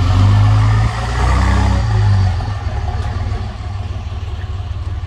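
Wind buffeting the phone's microphone: a loud, uneven low rumble that eases off after about two seconds.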